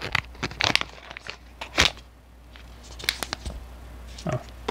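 Plastic mystery bag of a Funko Pint Size Heroes figure being torn open and crinkled by hand: a run of separate crackles and rustles, with one sharper, louder crackle about two seconds in.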